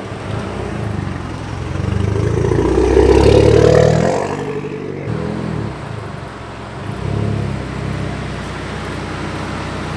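Car engine running at low revs, swelling into a brief louder rev about three seconds in, then settling back to a steady run.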